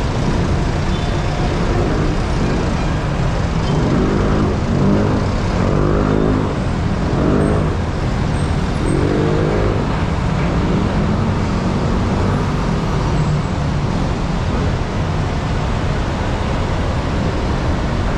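Busy street traffic: a steady low rumble of passing jeepneys, buses and cars, with a few short pitched sounds about four to ten seconds in.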